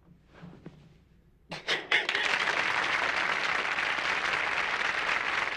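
Studio audience applause, breaking out suddenly about a second and a half in and then holding steady.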